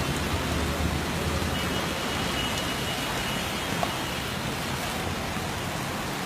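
Heavy rain falling steadily, a constant hiss, with a low hum underneath that fades out about two seconds in.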